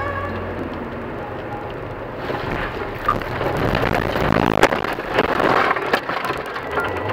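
Car running on a snowy road, then from about two seconds in a rising rush of snow and scraping as it runs off the road and ploughs through a snowbank into bushes, with repeated cracks and knocks, loudest about four and a half seconds in.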